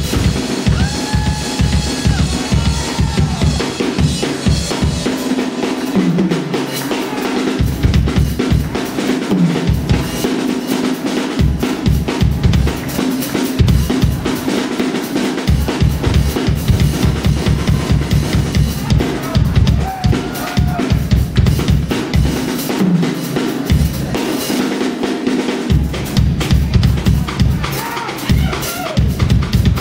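Live blues band playing: a drum kit keeps a steady beat on bass drum and snare under a pulsing bass line, with lead notes bending in pitch on top.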